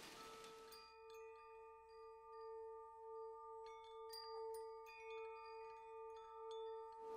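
Soft ambient background music: a steady pulsing drone with scattered wind-chime tinkles. A rain-like hiss fades out about a second in.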